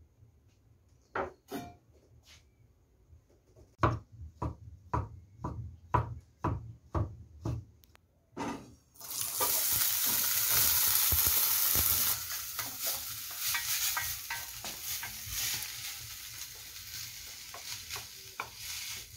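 A knife knocks about fifteen times on a wooden cutting board. About nine seconds in, chopped boiled cauliflower drops into hot oil in a frying pan and sizzles loudly. The sizzle eases off over the following seconds while a wooden spoon stirs it, with small knocks.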